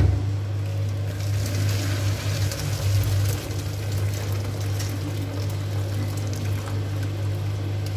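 Hot water splashing and pouring from a steel pot through a wire-mesh skimmer into a plastic bowl as par-boiled potato sticks are drained, over a steady low hum.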